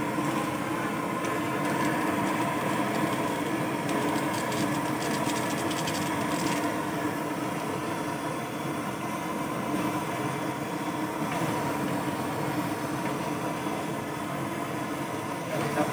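An engine idling steadily, a constant drone with a low hum.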